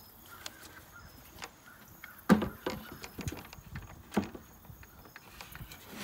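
Aluminium cookie-sheet tray knocking and clattering as it is handled and slid into a wooden screened bottom board. A few irregular sharp knocks, the loudest a little past two seconds in.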